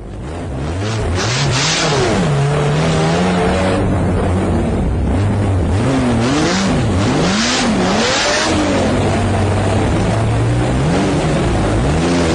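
A high-performance car engine revving hard, its pitch repeatedly climbing and dropping as the car accelerates and changes gear. It fades in over the first second.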